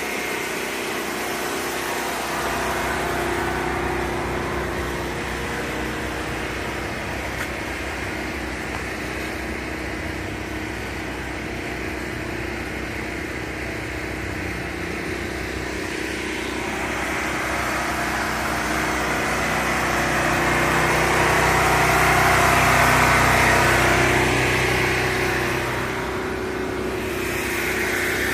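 Road traffic: motor vehicle engines running with a steady hum, building louder about two-thirds of the way through and easing off near the end.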